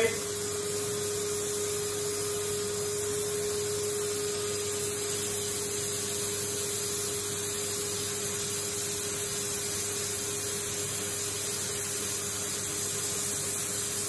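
Numatic Henry vacuum cleaner running steadily, with a constant hum and a rush of air, its hose sealed over the end of a bicycle frame tube to suck a thread through the frame.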